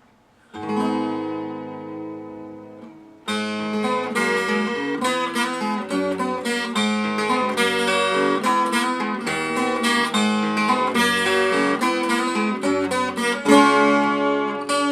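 Acoustic guitar playing a song introduction: one strummed chord rings out and fades, then from about three seconds in a steady picked accompaniment begins.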